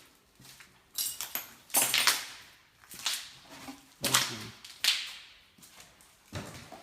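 Footsteps crunching on a gritty floor, about one step a second, each a short sharp crunch.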